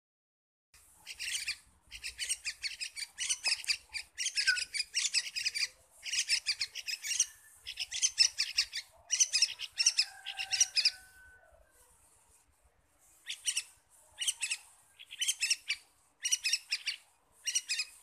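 Young yellow-vented bulbuls calling in repeated bursts of rapid, high chirps, with a pause of about two seconds two-thirds of the way through.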